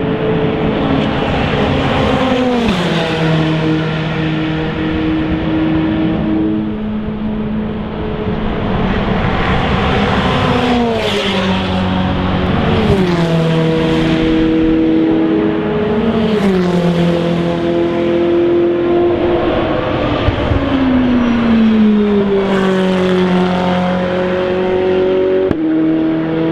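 Ferrari 488 GTE race car's 3.9-litre twin-turbo V8 running hard on track through several passes. The engine note drops in sharp steps half a dozen times, between stretches of steady pitch.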